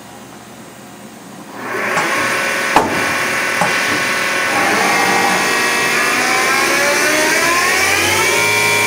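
Hardinge CNC lathe starting up about two seconds in and running, a mechanical whine whose pitch rises and falls as the spindle speed changes. A sharp click comes about a second after start-up.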